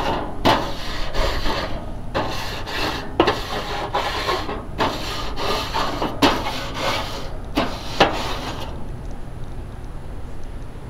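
Pre-oiled grill pad scrubbed back and forth across the metal grates of a hot charcoal grill: repeated scraping strokes that clean and oil the grates, stopping about nine seconds in.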